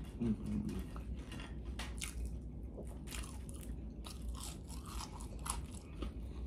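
A person chewing food close to the microphone, with irregular crisp crunches and bites throughout. There is a short closed-mouth hum near the start.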